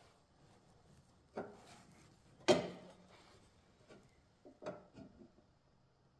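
A few light knocks and taps as a metal motor-mount bracket is held and shifted against the aluminium chassis panel, the sharpest about two and a half seconds in.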